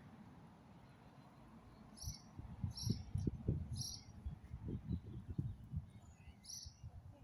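Four short, high chirps at uneven intervals, from a small chirping animal such as an insect. Low rumbling and thumps run under them from about two seconds in until near the end.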